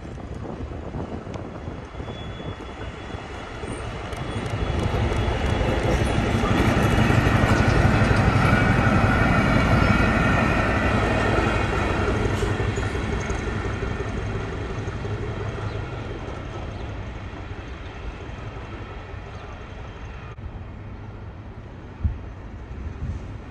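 SM42 diesel-electric shunting locomotive's diesel engine running as the locomotive passes hauling a wagon. It grows louder over a few seconds, then fades as it moves away. A single sharp knock comes near the end.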